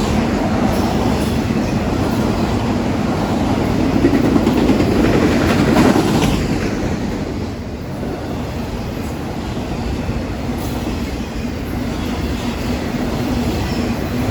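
Norfolk Southern freight train's cars rolling past, a steady rumble of wheels on rail that swells about four to six seconds in and eases a little after.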